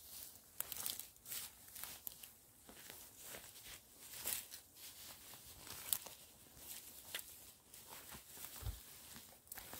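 Footsteps on dry grass and leaf litter: an uneven run of faint rustling crunches, about one to two a second.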